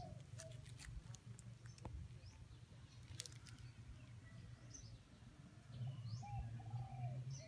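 Faint birdsong: small birds chirping now and then, and a dove cooing near the end, over a low steady hum.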